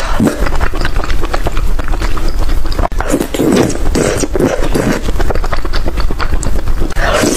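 A person eating close to the microphone: chewing with rapid, irregular smacking clicks.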